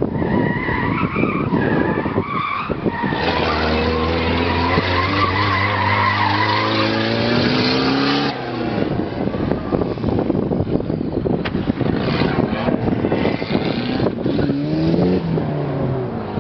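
Eagle Talon's four-cylinder engine running hard through an autocross cone course, with the tires squealing through the turns. The engine is loudest for several seconds as the car passes, drops off sharply after that, and near the end its pitch rises and falls as the driver comes off and back on the throttle.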